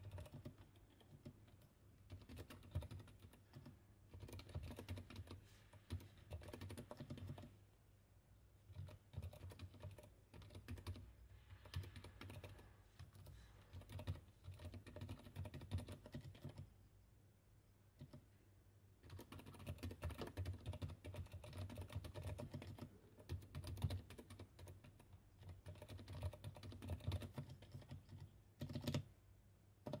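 Typing on a Yamada75 Go mechanical keyboard with an FR4 top plate, Kailh Box Silent Brown switches and blank PBT keycaps: runs of quick keystrokes with short pauses about 8 and 17 seconds in, and one sharper strike near the end.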